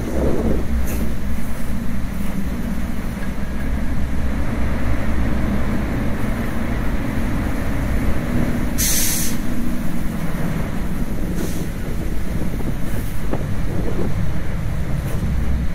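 Airport crash fire truck's engine and water pump running steadily while its roof monitor throws a water jet, with a short burst of hiss about nine seconds in.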